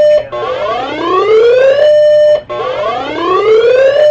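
Electronic 'whoop' alert siren played over a radio broadcast: a buzzy tone glides upward for about a second and a half, holds level for about half a second, breaks off and starts again, twice over. It is the attention sound ahead of a tornado warning being read.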